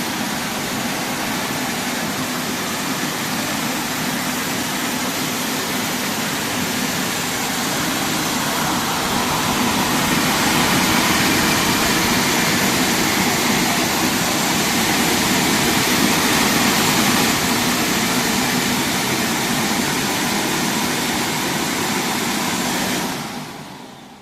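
Rollover automatic car wash machine running, a steady loud rush of noise that swells a little about a third of the way in and cuts off shortly before the end.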